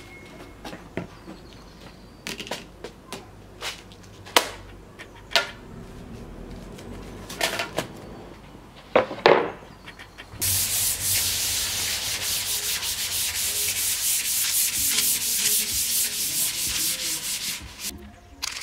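Knocks and clatters of wooden strips and an MDF board being handled and set down, then, about ten seconds in, hand sanding of the MDF board with a sheet of sandpaper: a steady rasping of quick back-and-forth strokes, the loudest sound, which stops shortly before the end.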